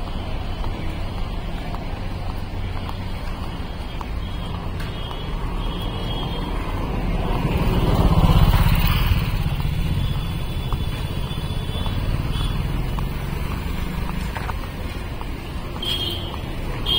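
Busy street traffic: motor vehicle engines running steadily, with one vehicle passing close about eight seconds in.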